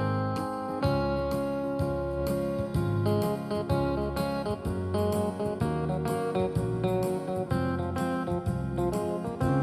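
Background music led by a plucked guitar, notes changing in a steady rhythm.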